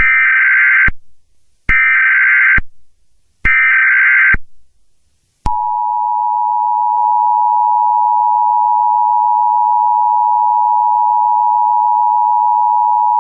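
Emergency Alert System broadcast tones. First come three short, harsh, buzzy SAME header data bursts, each just under a second long. About five and a half seconds in, the steady two-tone attention signal (853 and 960 Hz) starts and holds. Together these open an Emergency Action Termination alert.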